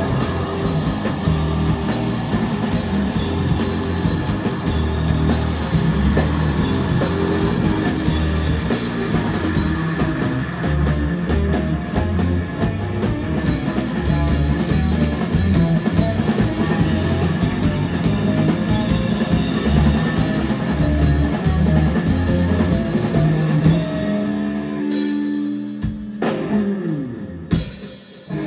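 Live rock band with electric guitars and a drum kit playing loud and dense. About four seconds from the end the drums stop and held guitar notes ring on, with a falling pitch slide before the sound briefly drops away.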